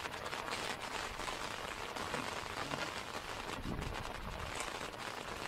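Steady rain falling, many small drops striking surfaces in an even hiss.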